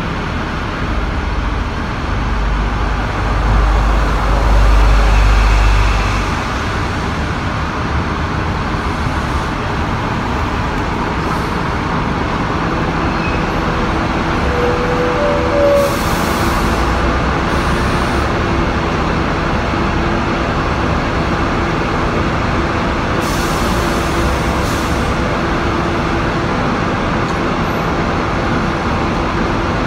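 Steady street traffic around a stationary tram, with vehicle engines running; a low engine rumble swells about three to six seconds in, and short hisses come near the middle and again later.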